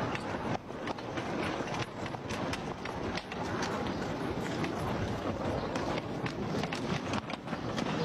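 Horse-drawn rail trolley on the move: a steady rumbling clatter with many irregular clicks and knocks from the wheels on the track and the running horse.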